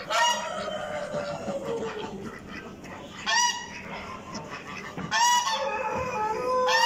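Domestic waterfowl honking: four loud, short honks, one just after the start, one about three seconds in, one about five seconds in and one near the end. Longer drawn-out calls sliding down in pitch rise over a constant din of other poultry.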